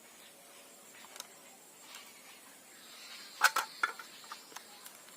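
Hands handling a boxed wireless mouse and its plastic packing: faint hiss, then a quick cluster of sharp clicks and crackles about three and a half seconds in, with a few lighter ticks after.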